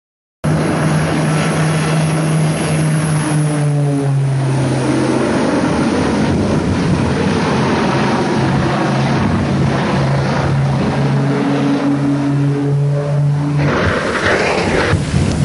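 Twin-engine propeller aircraft flying low overhead, its engines droning steadily with a few slight shifts in pitch, starting abruptly about half a second in.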